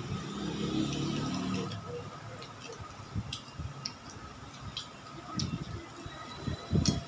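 Close-up eating sounds of balot: a short hummed "mm" while chewing, then wet chewing and lip smacks mixed with small sharp clicks as the eggshell is cracked and peeled off by hand. The loudest clicks come near the end.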